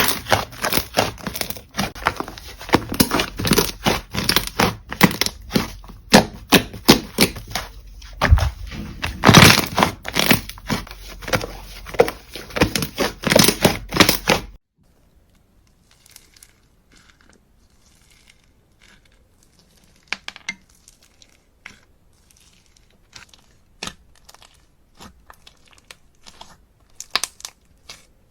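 Slime being squished and stretched by hand, with rapid sticky crackling and popping clicks. About halfway through it cuts abruptly to a much quieter stretch with only scattered soft pops.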